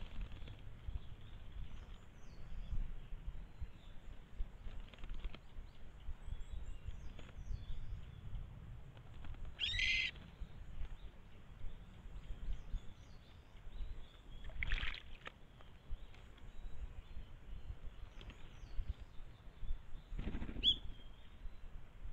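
Three short animal calls, spaced about five seconds apart, over a low steady rumble. The first call is the loudest.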